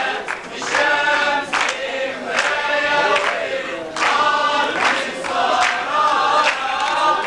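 A group of voices singing together in unison, with a sharp beat about once a second.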